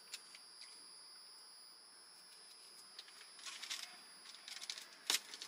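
Quiet car-cabin room tone with a faint steady high tone, then from about three seconds in the soft crackle and clicks of a plastic fork picking through a paper-lined takeout tray of boneless wings, with one sharp tap about five seconds in.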